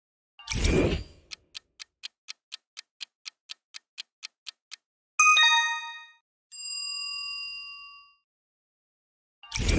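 Quiz timer sound effects: a short whooshing burst, then a clock ticking about four times a second, which stops as a bright bell ding sounds about five seconds in. A held chime tone follows, and another whooshing burst near the end starts the ticking again.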